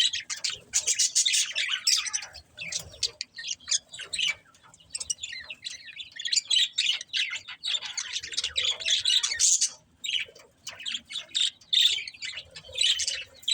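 Budgerigars chirping and chattering in rapid, high-pitched runs of short calls with a few squawks, broken by brief pauses.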